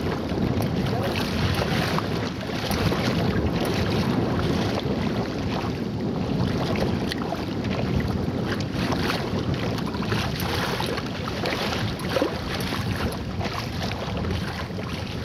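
Wind buffeting the microphone over the steady rush and splash of choppy lake water against a kayak's bow as it moves along.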